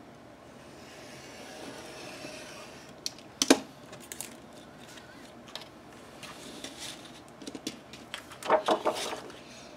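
Paper and small craft tools being handled on a work table: a soft paper rustle, then sharp clicks and taps, the loudest a single click about three and a half seconds in and a quick cluster near the end.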